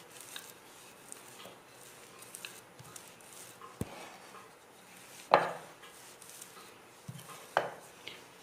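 A few scattered knocks and taps, the loudest about five seconds in, as parotta dough is pressed and spread out by hand on a work surface.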